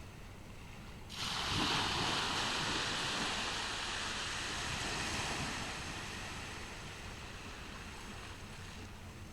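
An ocean wave breaks on a beach about a second in. Its surf hiss swells and then slowly fades over several seconds.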